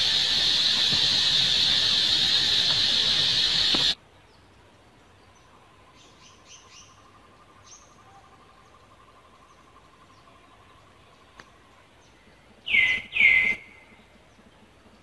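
Loud steady insect drone that cuts off suddenly about four seconds in. After it come faint chirps, then near the end two short, loud high calls that slide down in pitch.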